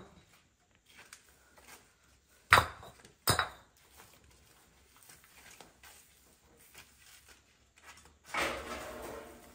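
Two sharp knocks of hard objects about a second apart, like pots or utensils being set down, then a scraping rustle lasting about a second near the end.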